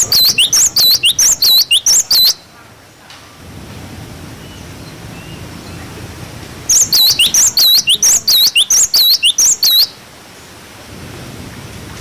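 Cinereous tit (glatik batu) calling its 'wucit-wucit' song: two bouts of quick, high, repeated swooping notes, about four or five a second, each lasting two to three seconds. A faint low background noise runs between the bouts.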